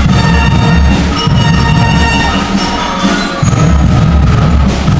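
A school band playing a piece, with pitched instruments over a steady low beat and mallet percussion; the low beat drops out briefly around the middle and comes back.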